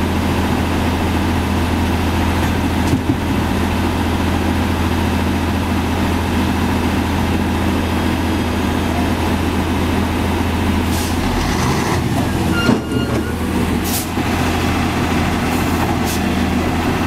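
Fuso self-loader truck's diesel engine running steadily close by, a deep, constant hum, with a few brief sharp noises in the second half.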